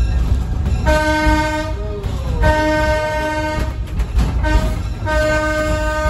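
Locomotive horn sounding the grade-crossing signal: two long blasts, a short one, then a long one, each a single steady note, over the low rumble of the moving train.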